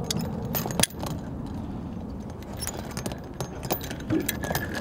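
Metallic clinks and clicks from anchor rope and gear being handled on a boat, with one sharp knock just under a second in, over a steady low rumble.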